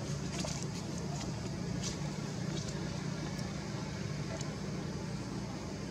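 A steady low drone, with a few faint clicks in the first two and a half seconds.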